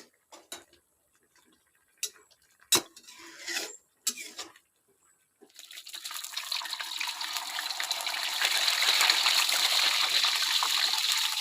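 A few short knocks and clatters, then water running from a tap, starting about halfway through and growing louder over a few seconds.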